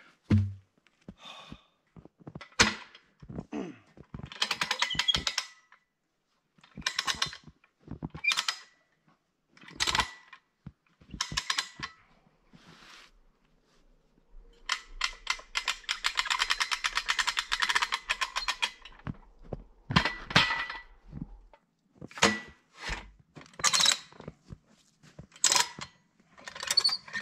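Scattered knocks, clunks and short scrapes from a log being turned with a cant hook and an Alaskan chainsaw mill's metal frame being handled, with a longer rasping scrape in the middle.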